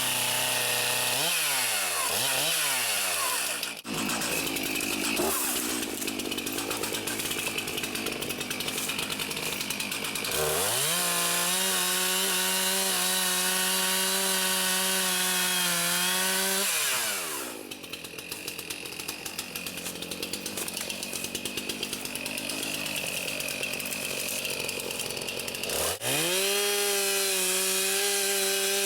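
Two-stroke gasoline chainsaw revving: the engine pitch swings up and down a few times at the start. It then cuts through logs, its pitch dropping under load from about 4 to 10 seconds in and again from about 17 to 26 seconds in. Between the cuts and near the end it runs at a steady high rev with no load.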